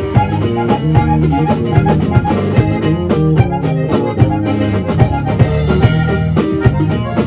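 Norteño band playing an instrumental passage: button accordion carrying the melody over guitar, electric bass and a drum kit keeping a steady beat.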